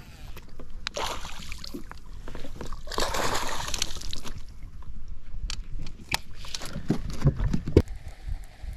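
Water splashing at the side of a bass boat as a hooked fish thrashes at the surface beside a landing net: two bursts of splashing, about a second in and again around three to four seconds in. A run of sharp clicks and knocks follows near the end.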